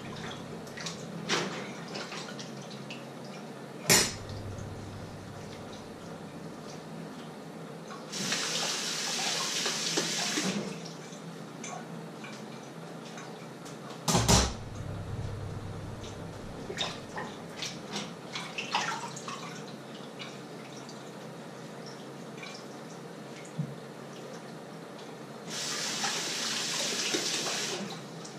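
Kitchen tap running into a sink twice, each time for about two seconds, amid light clinks and clatter of dishes and pans. Two sharp knocks, the loudest sounds, come about four seconds in and again about ten seconds later.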